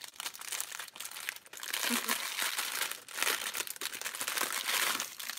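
Clear plastic bag crinkling in irregular bursts as it is handled and opened to take a necklace out.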